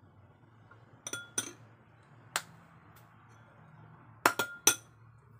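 Metal spoon clinking against a small ceramic bowl as a spoonful of ketchup is emptied into it: two sharp clinks about a second in, one more midway, and a quick cluster of three, the loudest, near the end.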